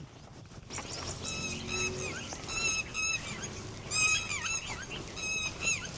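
A group of birds calling together: many short, sharp, pitched calls repeated and overlapping, starting about a second in, the birds set off into alarm.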